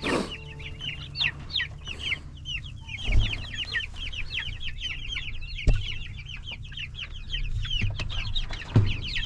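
A flock of young meat chickens peeping continuously, many short high cheeps overlapping, with a few brief thumps in between.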